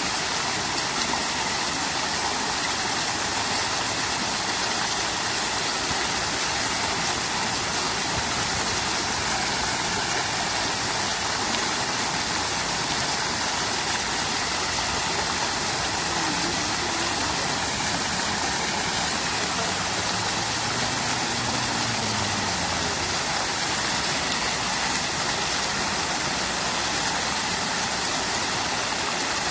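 Fountain water falling and splashing in a steady, continuous rush.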